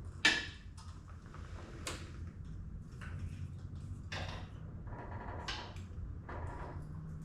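Handling noises from working a bolt into a generator's foot with tools: a sharp click about a third of a second in, then scattered clicks and scrapes every second or so, over a low steady hum.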